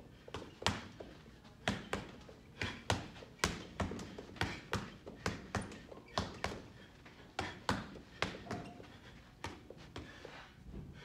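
Punches from Rival RB5 leather bag mitts landing on a hanging heavy bag: sharp slapping thuds, mostly in quick pairs like one-two combinations, roughly one pair a second with short gaps between.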